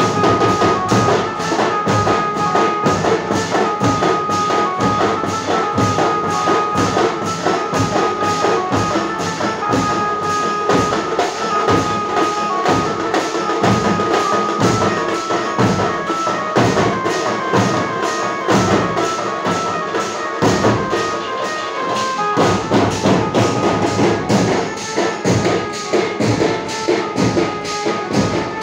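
Loud processional band music: fast, dense drumming with a melody played over it. The beat keeps going without a break.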